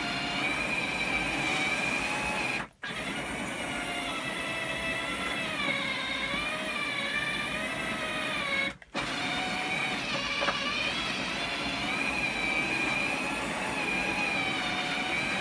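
R2-D2 dome drive motor turning the 3D-printed dome: a steady whine whose pitch wavers as the drive labours, breaking off twice for an instant. The dome is still catching slightly on the metal rim, which makes the rotation uneven and adds friction noise.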